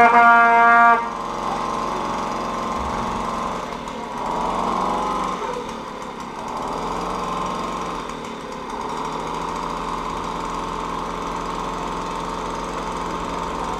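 Small two-stroke Mobylette moped engine running on the spot, its note swelling briefly about four seconds in as it is revved. A loud, steady tone lasting about a second opens the sound.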